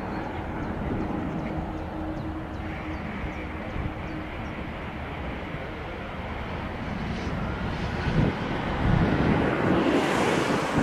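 Airbus A319-100 jet airliner's engines rumbling on the landing roll just after touchdown, with a faint steady hum through the first half. The noise grows louder near the end.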